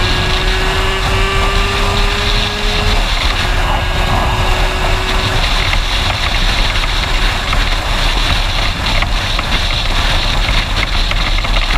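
Aprilia RS with an 86 cc-kitted Minarelli AM6 two-stroke engine ridden at road speed, its engine note steady and rising slightly in the first few seconds, under heavy wind noise on a helmet-mounted camera. A fine buzzing rattle runs through it, which the rider traces to his helmet visor lifting in the wind.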